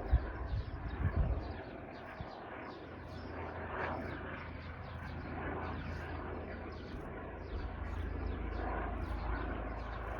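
Air ambulance helicopter flying past: a steady low rotor and engine rumble that settles in about two seconds in, after a few gusts of wind hitting the microphone at the start.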